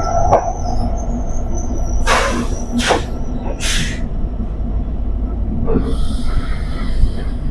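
Passenger train standing at a station: a steady low rumble, broken about two to four seconds in by three short bursts of hissing.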